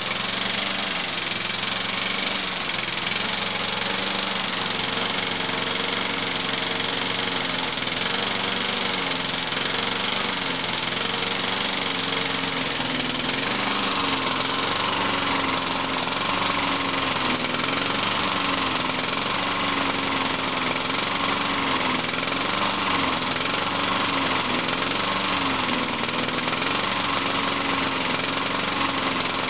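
Craftsman lawnmower engine running unattended with its fuel valve shut off, burning the last gas from the carburettor. Its speed rises and falls every couple of seconds: it is surging as it runs out of fuel.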